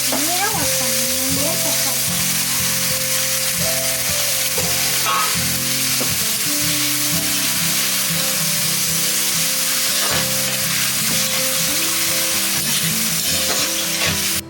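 Food sizzling steadily in a hot pan over the fire.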